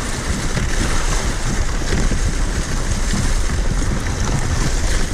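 Steady rushing noise of a kicksled gliding over snow behind a dog team, with wind buffeting the microphone.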